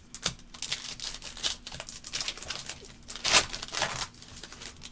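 Foil wrapper of a Panini Revolution basketball card pack crinkling and tearing open, with cards rustling as they are handled: a run of short rustles and clicks, the loudest rip a little over three seconds in.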